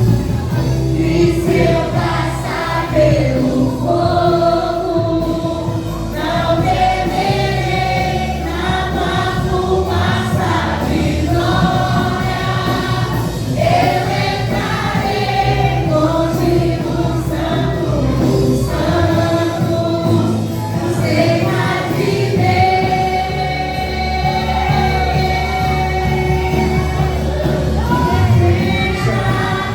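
Gospel worship song sung by a choir, with a steady instrumental accompaniment underneath.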